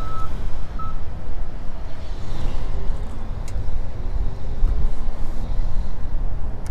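Steady low rumble of wind buffeting the microphone, with a high electronic beep at the start and a second, shorter beep just under a second in.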